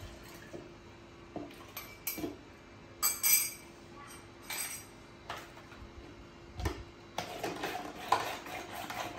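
Spoon and containers clinking and knocking in scattered strokes, with a louder clatter about three seconds in, then a spoon stirring in a plastic tumbler, tapping quickly and repeatedly from about seven seconds in.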